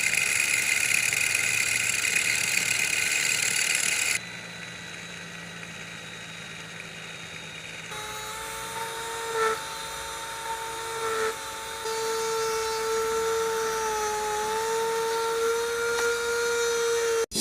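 Electric power tools running in short cut-together clips: a loud grinding hiss for about four seconds, then a quieter hum, then a small motor's steady whine that dips briefly in pitch a few times as it takes load.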